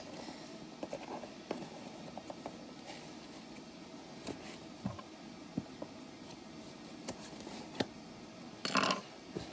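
Faint scattered clicks and scrapes of hands working at a mailed package to get it open, with a louder scrape near the end.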